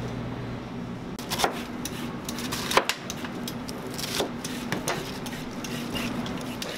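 Kitchen knife chopping iceberg lettuce on a cutting board: a handful of sharp, separate strikes, with leaves being handled between them. A steady low hum runs underneath.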